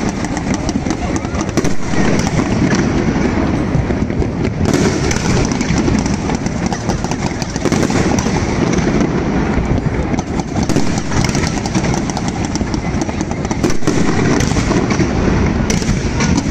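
Fireworks display going off: a dense, unbroken run of bangs and crackles from many shells and rockets fired at once.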